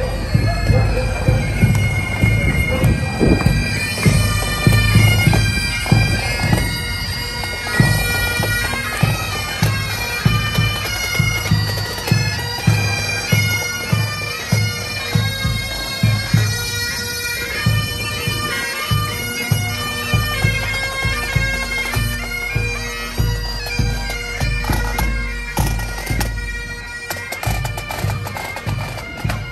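A pipe band marching past: bagpipes playing a tune over a steady drone, with snare and bass drums beating a regular marching time.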